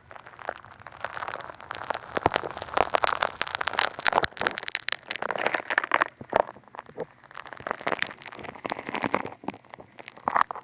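Funny Foam squished and rubbed over a dummy head microphone's ear, a dense irregular crackling and popping as the foam bubbles burst. It is thickest in the middle and thins out near the end.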